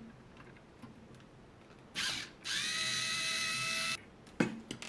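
Cordless electric screwdriver undoing a screw: a brief burst about two seconds in, then a steady motor whine for about a second and a half that stops suddenly. A few sharp clicks follow near the end.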